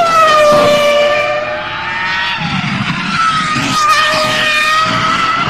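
Williams FW25's BMW 3.0-litre V10 Formula 1 engine at race speed, its high-pitched note falling over the first second, then holding fairly steady and climbing slightly near the end.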